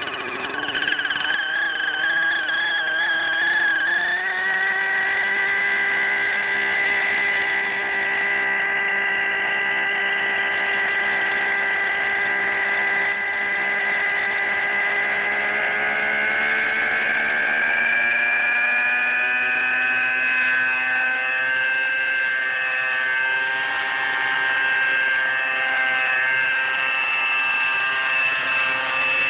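Align T-Rex 600 nitro RC helicopter's glow engine running and spooling up the rotor on first start-up. The pitch climbs for the first four seconds, holds steady, then rises again after about sixteen seconds as the rotor head speed builds toward lift-off.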